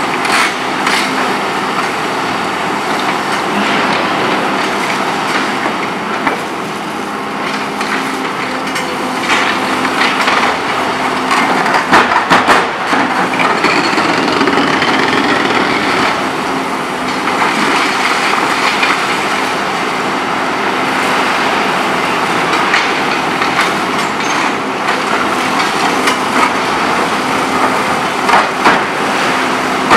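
Volvo EC 700B HR demolition excavator's diesel engine running steadily under load while its hydraulic concrete shear crushes very hard, steel-reinforced concrete. Through it come repeated cracks and crunches of breaking concrete and rebar, loudest about twelve seconds in and again near the end.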